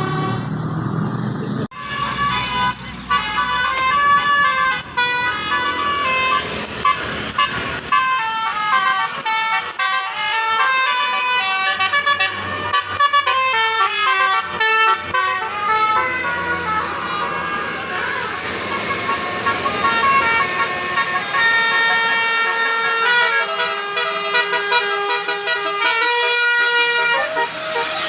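Bus 'telolet' basuri horn, a multi-tone musical horn, playing melodies of short stepped notes phrase after phrase, starting about two seconds in.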